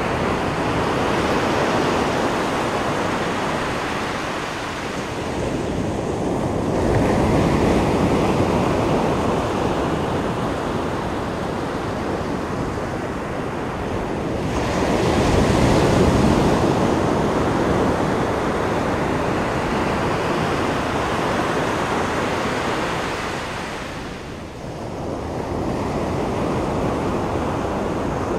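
Pacific Ocean surf breaking on a sandy beach: a continuous rush of waves that rises and falls as breakers come in, loudest about halfway through and easing briefly near the end before building again.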